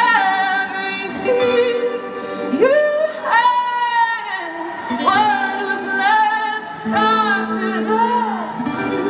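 Live female lead vocal over a band, holding long, wavering notes that slide upward into new notes a couple of times, heard from the audience.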